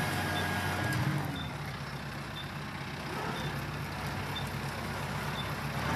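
Kubota M7060 tractor's four-cylinder diesel engine running at low speed while the tractor drives and backs up, a little quieter mid-way. A faint short high beep repeats about once a second.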